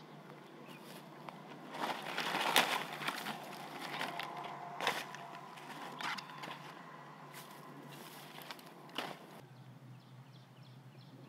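Dry straw and twigs rustling and snapping as they are handled and laid on a fire pit, with a dense run of crackles about two to three seconds in and single sharp snaps near five, six and nine seconds.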